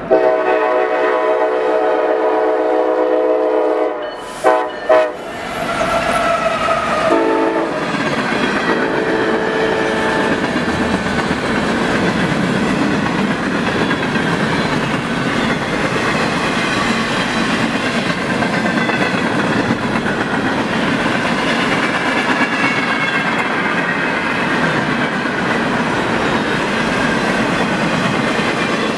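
A freight train's locomotive air horn sounds a long chord, then a few shorter blasts that come out lower in pitch as the locomotives go by, for about the first ten seconds. After that a long string of boxcars rolls past in a steady loud din of wheels on rail, with a faint high squeal from the wheels.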